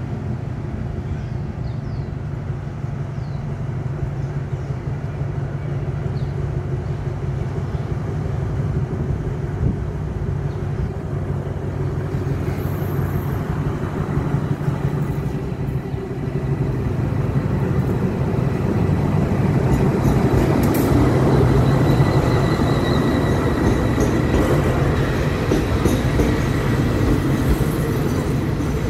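MTU-engined Alsthom diesel-electric locomotive pulling a local passenger train into a station: a steady diesel drone that grows louder as it comes up, with the wheels running over the rails. A faint high squeal joins about two-thirds of the way through, as the locomotive and coaches pass close by.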